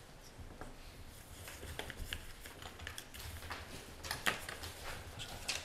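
Paper ballot slips being written on and handled: scattered light pen taps, scratches and paper rustles, with a sharper click about four seconds in, over a low room hum.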